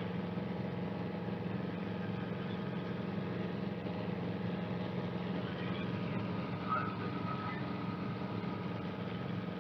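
Cabri G2 helicopter's four-cylinder Lycoming piston engine and rotors running steadily. A short higher tone joins about seven seconds in and holds.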